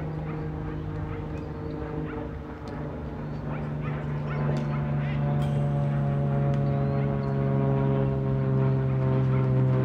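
A steady mechanical hum made of several held tones, growing louder and shifting slightly in pitch about halfway through.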